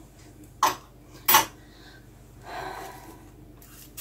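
A person sniffing sharply twice, less than a second apart, then breathing out more softly.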